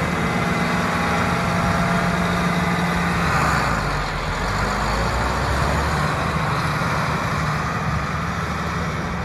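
John Deere 8640 four-wheel-drive tractor's turbocharged six-cylinder diesel engine running; about three and a half seconds in it takes on load and pulls harder as the tractor moves off, then it fades a little as the tractor draws away.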